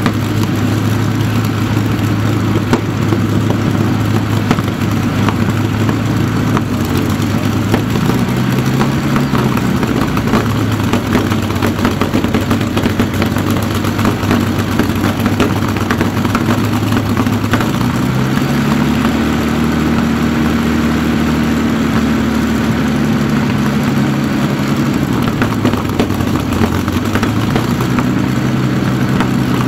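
Rolls-Royce Merlin V12 aero engine running on a test stand. It holds a steady speed, is opened up about a third of the way in and further in the middle, then eased back before picking up again near the end.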